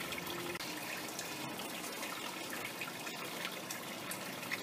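Steady trickle of water circulating through a PVC hydroponic grow tower, running on without a break.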